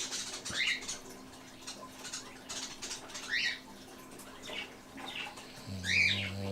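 Sleeping Doberman snoring: three high squeaky whistles through the nose, a few seconds apart, and a low droning snore that starts near the end.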